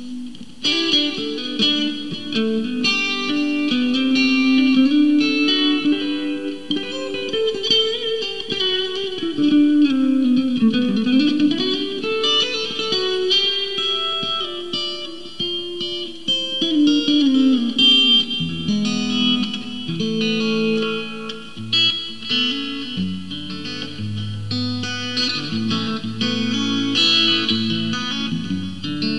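Squier Classic Vibe 50's Stratocaster electric guitar with single-coil pickups played through a clean amp tone: a run of picked single-note melody lines. About ten seconds in the pitch dips and swoops back up as the tremolo bar is pushed, and in the second half lower notes on the bass strings join in.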